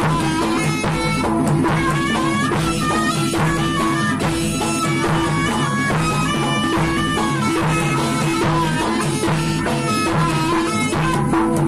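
Music for a jaranan horse-trance dance, played without pause: drums under a melody of short, stepping notes over a held tone.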